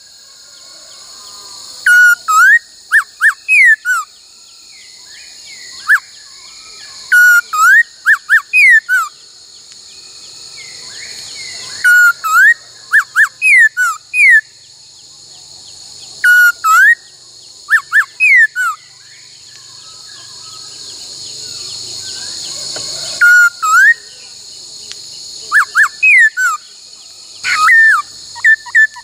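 Laughingthrush singing loud, repeated short phrases of quick falling whistled notes, a cluster every few seconds, over a steady high hiss.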